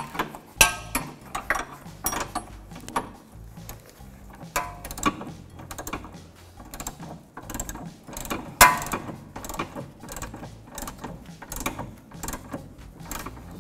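Hand ratchet clicking in short irregular runs as a 14 mm socket on an extension snugs down a sway bar end link nut, with metal tool clinks. One louder metallic clank comes about two thirds of the way through.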